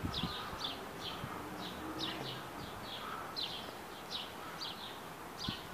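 Birds chirping: a steady run of short, high chirps, several a second.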